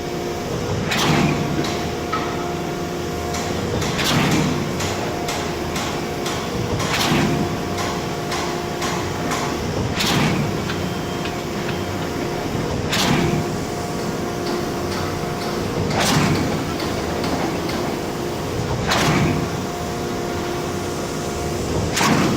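Truck-mounted concrete pump running steadily under load, its engine and hydraulics giving a constant hum, with a loud surge about every three seconds as the pumping pistons change stroke and the valve swings over.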